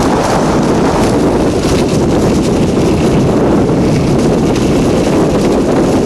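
Loud, steady wind noise buffeting the microphone of a camera carried between the skis during a fast straight downhill ski run.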